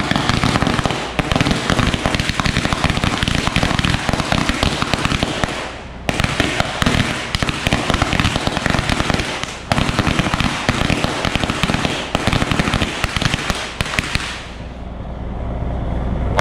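A long string of firecrackers going off: a rapid, unbroken crackle of small bangs. It eases briefly about six and ten seconds in and stops about fourteen seconds in.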